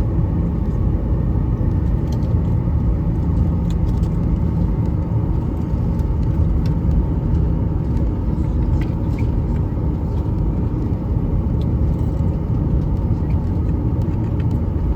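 Steady low rumble of a passenger airplane's engines and airflow heard inside the cabin, with a few faint small ticks.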